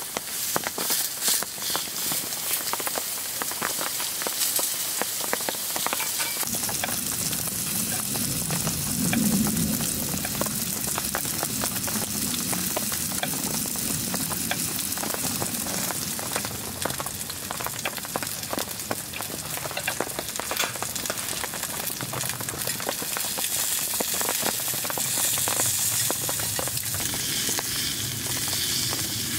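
Pork sizzling and crackling in a hot cast-iron skillet on a wood stove, with a steady spitting hiss. A low hum joins in about six seconds in.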